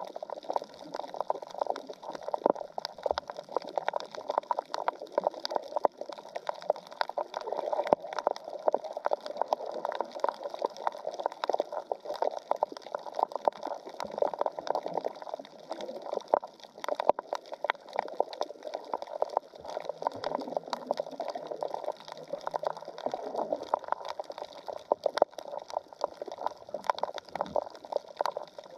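Underwater reef ambience picked up through a camera's waterproof housing: muffled water sloshing with a dense, irregular crackle of clicks.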